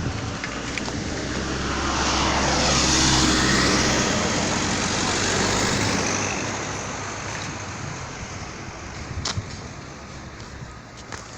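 An airplane flying past overhead: its engine noise swells to its loudest about three seconds in, then fades away while its pitch drops.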